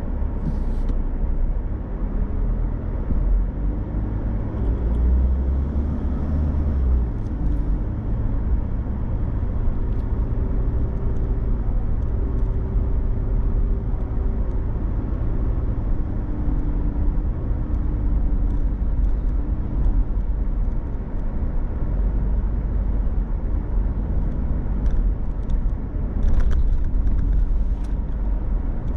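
Car driving along a city street: a steady low rumble of engine and road noise, with a faint hum that rises and falls slightly in pitch as the speed changes.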